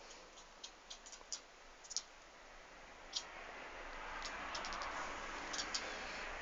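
Kitten making faint, irregular little clicks, some in quick runs of two or three, the clicking chatter that sounds like a squirrel.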